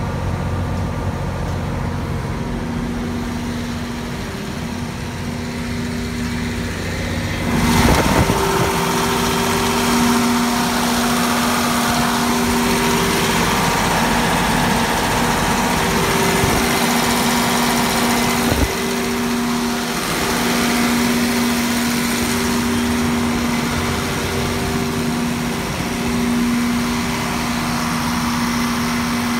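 Scania DC12 inline-six diesel engine of a 350 kVA generator set running at a steady speed: a constant hum with a steady tone. About eight seconds in it suddenly gets louder and brighter.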